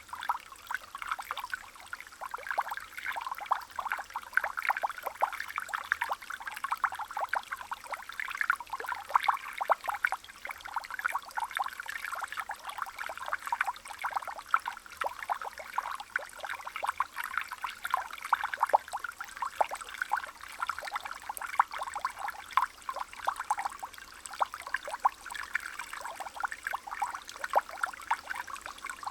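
Water trickling and splashing steadily, a dense patter of small splashes with little low rumble.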